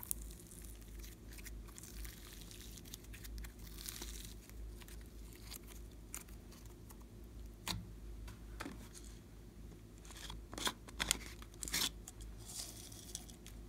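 Hands stretching and squishing glossy slime: irregular sticky clicks and crackles, with a cluster of louder pops about two thirds of the way through.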